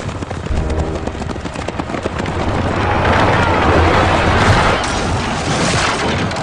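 Film chariot-race sound mix: galloping horses' hooves and chariot wheels rumbling over dirt, with heavy low thumping throughout. About halfway through it swells into a loud rushing wash.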